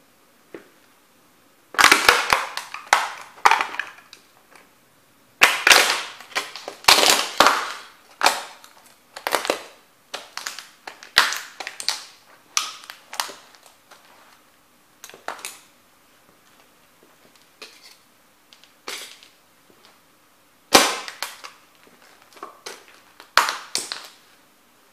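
Small model railway houses cracking and crunching as a sneaker stomps and tramples them. There are clusters of sharp snaps and crunches starting about two seconds in and returning every few seconds, with quieter gaps between.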